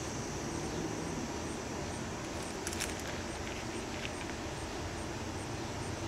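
Steady outdoor background rumble, with a brief cluster of sharp clicks about three seconds in and a few fainter ticks just after.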